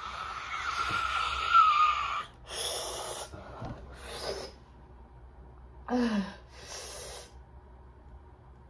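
A woman gasping and breathing hard through her mouth against the burn of very spicy noodles: a long, high, wheezing breath at first, then several short hissing breaths, with a brief groan about six seconds in.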